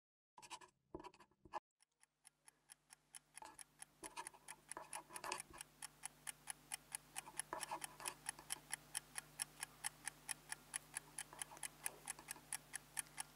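Mechanical timer ticking steadily and quietly, several ticks a second, after a few short clicks near the start.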